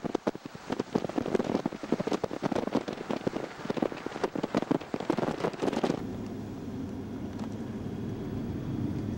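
Dense crackling noise full of sharp clicks, typical of air rushing past an open window of a moving van. About six seconds in it cuts off suddenly to the steady low hum of engine and road noise inside the van's cabin.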